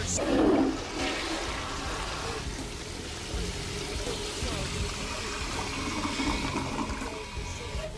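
Water running from a tap into a bathroom sink. It starts with a brief louder sound about half a second in, then runs steadily until near the end.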